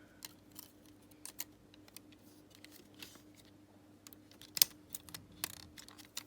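Scattered small plastic clicks and taps of Xbox One controller parts being handled and fitted back together, with one sharper click a little past halfway, over a faint steady hum.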